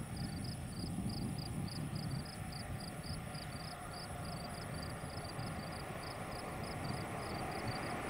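A John Deere combine harvester and a tracked tractor with a grain cart running in a soybean field, heard as a steady low machinery rumble. Over it a high, regular chirping pulses about four times a second.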